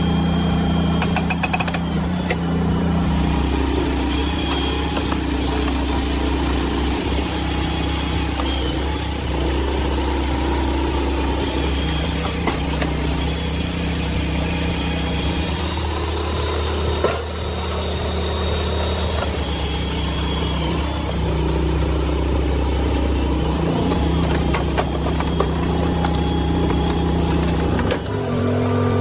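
Engine of a large hydraulic log splitter running steadily under the splitting work, its pitch shifting a few times as the load comes and goes.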